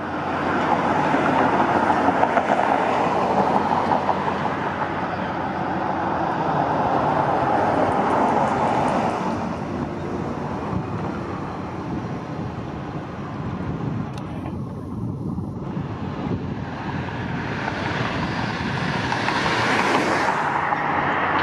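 Road traffic on a nearby street: a steady rush of vehicles and tyres that is louder for the first several seconds, eases off in the middle and swells again toward the end as more vehicles pass.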